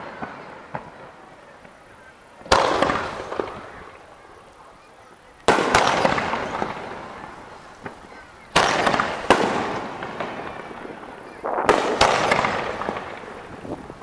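Aerial firework shells bursting about every three seconds. Each sharp bang is followed by a long rolling echo that fades away, and two bangs come close together near the end.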